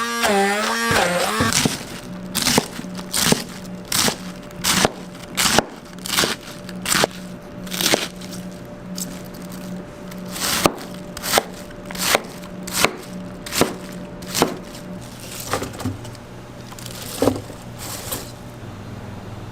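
Steady run of sharp knocks, about one every three-quarters of a second, of a utensil striking a board or pan during street-food cooking. A steady low hum runs beneath it. The knocks thin out and stop near the end.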